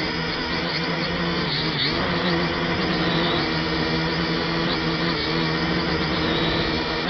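F183DH quadcopter's motors and propellers whining steadily, with the high whine wavering up and down in pitch as the motors keep adjusting to hold it steady against strong wind.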